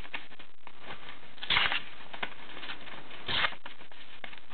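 Two brief rustling swishes of a sheet of paper being handled or sliced with a small pocket-knife blade, one about one and a half seconds in and one a little past three seconds.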